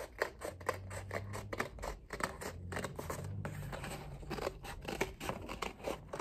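Scissors cutting folded construction paper: a quick, steady series of short snips as the blades work along a curved line.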